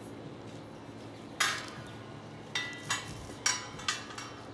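Metal wire grating and steel frame tubes of an IKEA Breim wardrobe clinking and knocking together as they are handled and fitted. There are five sharp metallic knocks: the loudest comes about a second and a half in, and four lighter ones follow in a quick cluster near the end.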